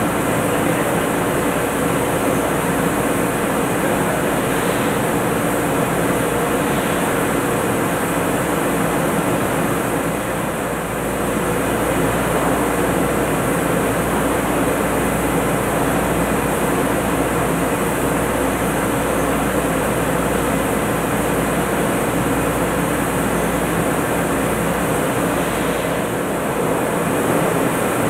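Steady, loud drone of drilling rig machinery, a constant mechanical noise with several steady hum tones and no breaks.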